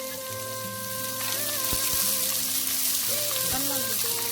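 Background music with slow held melody notes over a steady sizzling hiss of food frying.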